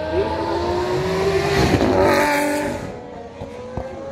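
A supercar engine accelerating hard past, its note climbing in pitch and growing louder to a peak about two seconds in, then falling away quickly as the car goes by.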